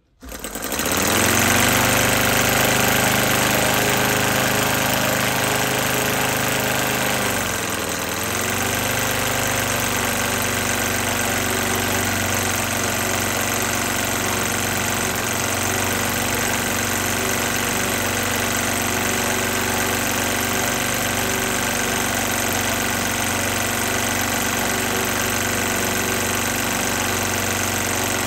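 Morton M5 five-cylinder scale model radial engine catching as its propeller is flicked by hand, then running. Its speed sags briefly about eight seconds in, then picks up and runs steadily, its carburettor not yet tuned for smooth running.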